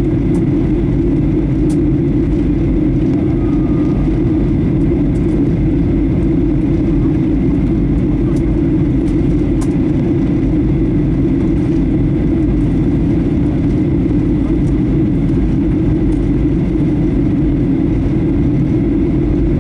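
Steady cabin roar of a Boeing 737-800 airliner during descent, heard from a window seat: CFM56 engine and airflow noise, a deep even rumble with a faint steady whine above it.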